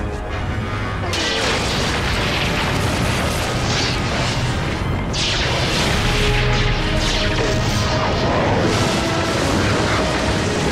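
TV action soundtrack: a continuous explosion effect with a heavy low rumble and noisy crashing starts about a second in and keeps going under dramatic orchestral music.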